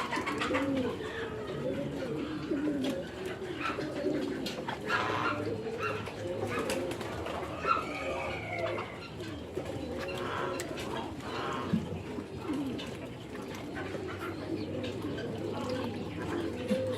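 A flock of birds cooing together: many low, overlapping rising-and-falling calls, repeating constantly.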